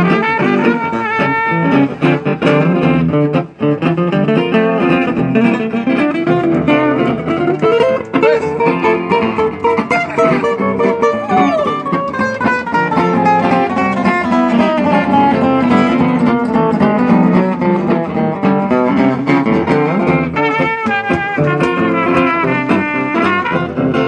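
Live swing jazz on trumpet and guitar: the guitar is strummed steadily while the trumpet plays the melody.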